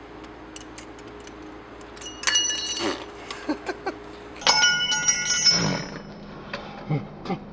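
Bicycle bell rung twice, about two seconds apart, each ring fading out over about a second, with a few light clicks in between.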